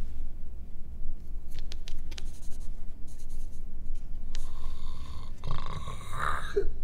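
Pencils scratching on paper in a quiet room. About four seconds in, a man starts snoring.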